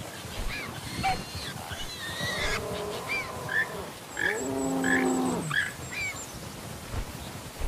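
Animal calls: a run of short high chirps about twice a second, with a longer, lower drawn-out call about four to five seconds in.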